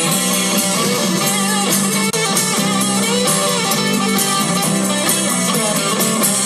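A rock band playing an instrumental passage between sung lines, led by strummed guitars over a steady bass line.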